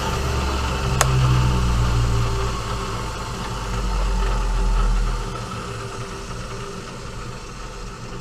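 Excello vertical milling machine running, a steady motor and spindle hum, with a sharp click about a second in; the deep part of the hum falls away about five seconds in.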